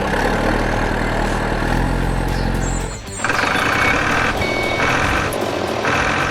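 Motor or engine running steadily. Just after a short dip about three seconds in, it is joined by beeps repeating about once a second, like a vehicle's reversing alarm.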